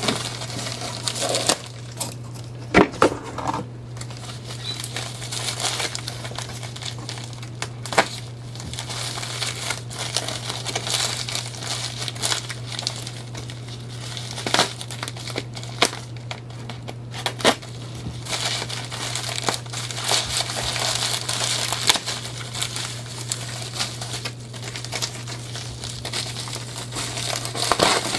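Packaging crinkling and rustling as a parcel is unwrapped by hand, with scattered sharp crackles, over a steady low hum.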